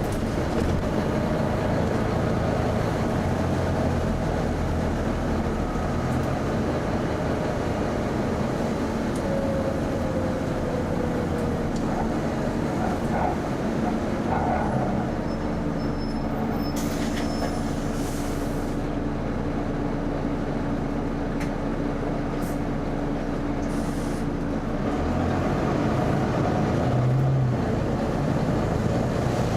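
Volvo B9TL bus's engine cooling fan running loud with a steady hoover-like drone and hum over the engine, with a few faint clicks and a brief hiss about two-thirds of the way in.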